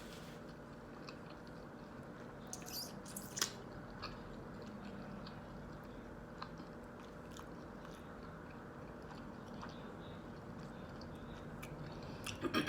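Close-miked chewing of a breakfast sandwich: quiet mouth sounds with a few brief wet smacks and clicks, a little more pronounced around three seconds in.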